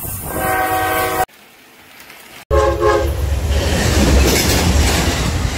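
Diesel locomotive horns sounding a chord of several tones in two short blasts cut together, the first in the opening second and the second about two and a half seconds in. After the second blast comes the loud, low rumble of a locomotive passing close by.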